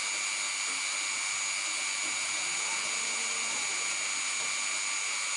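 Dremel rotary tool spinning a 60° V-bit at 15,000 RPM, thread-milling aluminum on a lathe under MQL lubrication: a steady high-pitched whine over a hiss, cutting in abruptly at the start.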